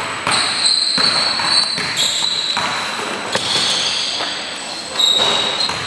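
Basketballs bouncing on a gym's hardwood court, with several separate thuds against steady gym background noise.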